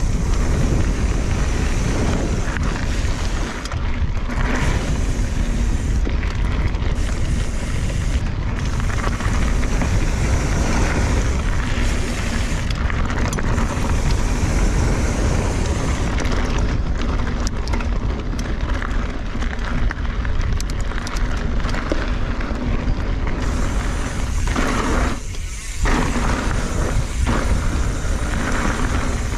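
Riding a 2017 Kona Honzo hardtail mountain bike, heard from a chest-mounted camera: a steady wind rumble on the microphone with the tyres rolling over a loose, rocky dirt trail. A brief lull comes about four seconds before the end.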